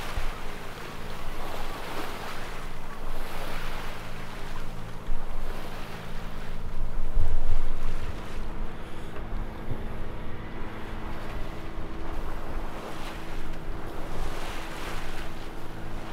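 Sailing yacht moving through choppy sea: water rushes and splashes along the hull and bow in repeated swells every few seconds, with wind buffeting the microphone. A steady low hum runs underneath.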